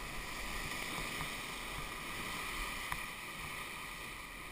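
River rapids rushing steadily around an inflatable whitewater raft, with a couple of faint clicks.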